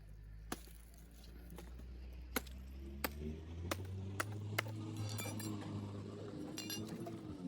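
Several sharp taps or clicks, about six in the first five seconds, over a steady low hum that slowly grows louder.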